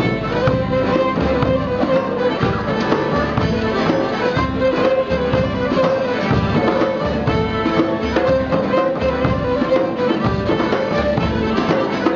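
Live folk band playing a lively dance tune: fiddle leading over accordion and guitar, with a large double-headed bass drum beating a steady low pulse.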